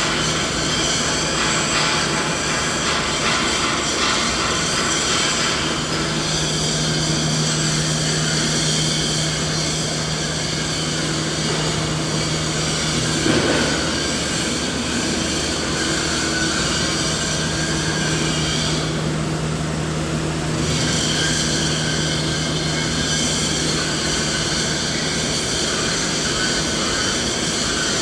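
Steady machinery drone: an even rushing noise with several steady humming tones running through it, the high hiss thinning briefly about two-thirds of the way through.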